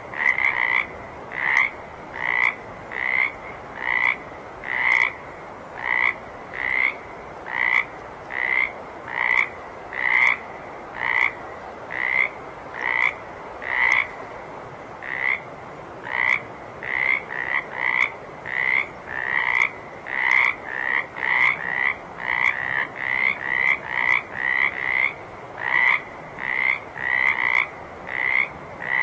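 Water frogs croaking: a steady run of short, repeated croaks, roughly one a second at first and quickening to nearly two a second in the second half, over a soft background hiss.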